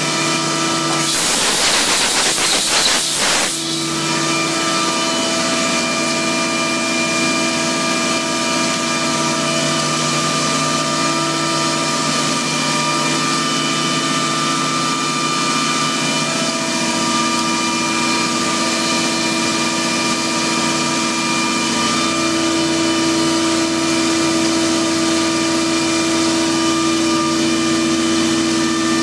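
Large main engine running steadily, a drone of several held tones. About a second in, a loud hiss lasts roughly two and a half seconds.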